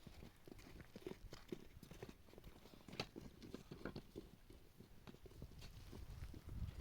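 Faint, irregular clicks and knocks, scattered through the stretch, with one sharper knock about three seconds in.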